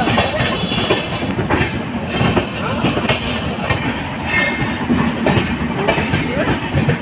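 A passenger train's coach wheels running on the rails as the train pulls out, clattering over rail joints and points, with a brief high wheel squeal about four seconds in. Heard from the open door of the moving coach.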